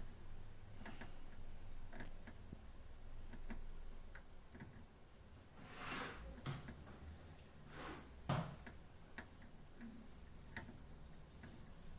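Faint scattered clicks and light taps of hands and tools dismantling a front-load washing machine's door lock switch, with a longer handling noise about six seconds in and one sharper knock just after eight seconds.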